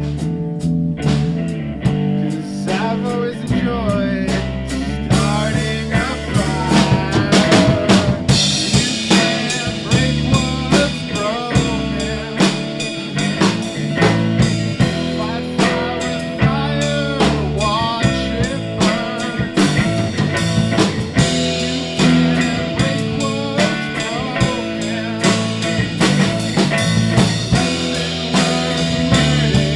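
Blues-rock band music: a drum kit keeps a steady beat under guitar and low bass notes, with lead notes bending in pitch. The sound gets fuller and brighter about eight seconds in.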